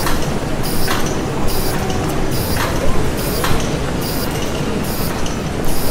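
Industrial machinery running: a steady low mechanical rumble with a rhythmic hissing stroke repeating a little more than once a second.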